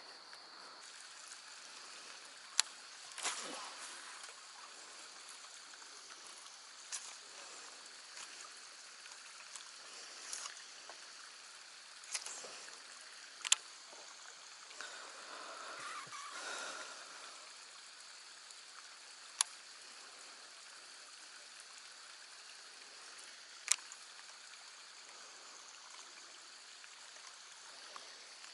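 Quiet ambience on still lake water: a faint steady hiss with light trickling and lapping of water, broken by a few isolated sharp clicks.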